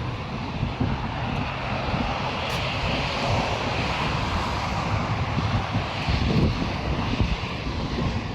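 Wind buffeting the microphone over a steady rushing noise that swells slightly midway.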